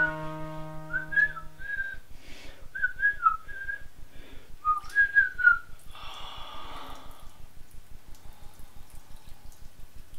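A man whistling a casual tune in short, wavering phrases, followed by a brief hiss about six seconds in. A faint, fast, even low pulsing runs underneath.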